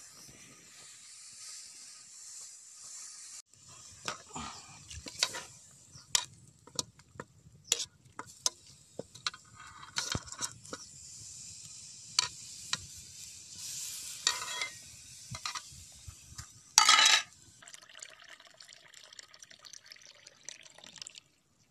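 Cooking in a metal pot over a wood fire: a ladle stirring and knocking against the pot, with scattered sharp clicks and one loud scrape or knock near the end, over a steady hiss.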